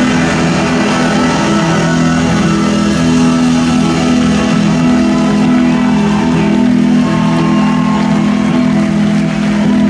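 Live rock band playing loudly: guitars and drums with a horn section, over a long held chord.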